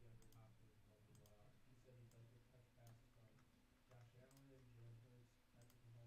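Near silence with a few faint, irregular computer mouse clicks over a low steady hum.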